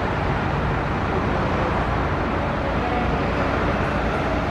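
Steady low rumble of running vehicle engines and street traffic, with no siren sounding.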